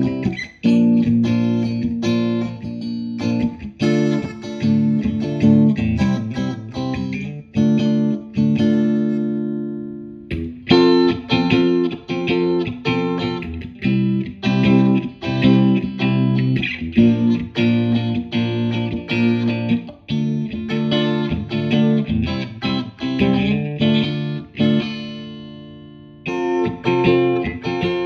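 Fender Stratocaster electric guitar played with a clean tone in the middle-and-bridge pickup position, repeating a classic riff of chords and single notes. The riff breaks off about ten seconds in and again near the end, then starts over.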